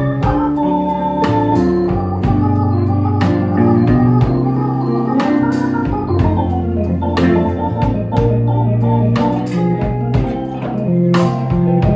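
Live blues band playing an instrumental passage without vocals: organ chords and runs up front, over a steady drum beat and electric guitar.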